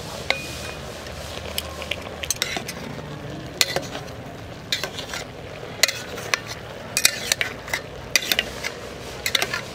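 A metal spatula stirring and scraping cooked rice in an aluminium pot, with irregular sharp clicks and knocks of metal on the pot's sides.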